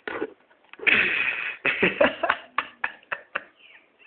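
A sleeping man snoring: one loud, rasping snore about a second in, followed by a string of short clicks and knocks.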